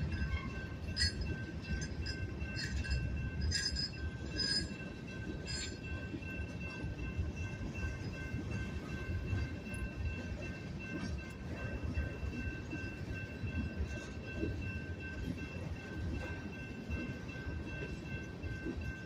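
Freight train cars (covered hoppers and tank cars) rolling slowly past with a heavy, uneven low rumble. A thin steady high tone holds throughout. Several short metallic clinks and squeals come in the first six seconds or so.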